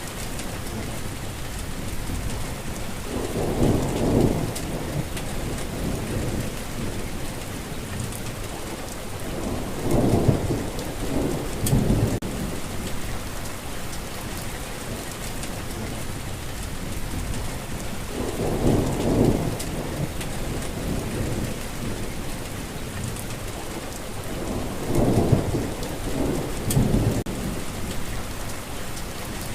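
Steady heavy rain falling, with low rolls of thunder swelling up four times.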